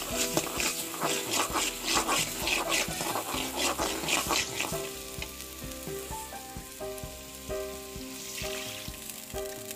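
Flat metal spatula scraping and stirring onion, chili and ginger-garlic paste sizzling in oil in a metal karahi, in quick strokes of about two a second for the first four or five seconds, then a softer sizzle. Near the end water from a bowl is tipped into the hot paste with a brief hiss, over steady background music.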